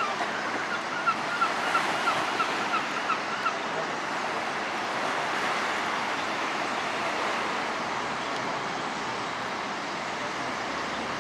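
Steady wash of sea surf. About a second in, a bird gives a quick run of about ten short, evenly spaced calls, roughly three a second, which stop after a few seconds.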